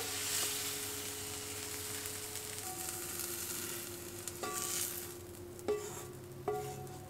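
Vegetables sizzling in an enamelled cast-iron frying pan, the sizzle fading away. In the second half, three light knocks as a wooden spoon scrapes the food out of the pan onto a plate.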